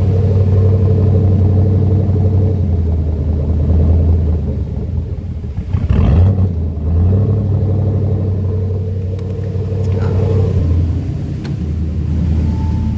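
Chevrolet 5.3 L all-aluminum LS V8 (L33) with a Truck Norris camshaft running steadily at idle on a rough preliminary tune, with a brief change in its note about halfway through.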